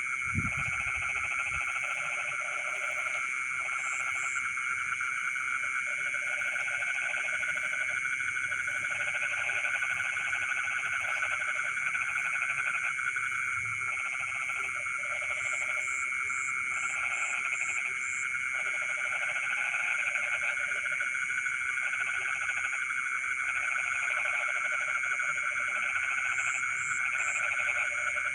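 Night chorus of frogs in a flooded rice field: croaking calls in bouts of a second or two, repeating on and off, over a steady shrill trill from the rest of the chorus.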